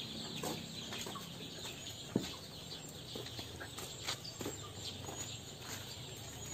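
Chickens clucking, scattered short calls, with a sharp tap a little after two seconds in.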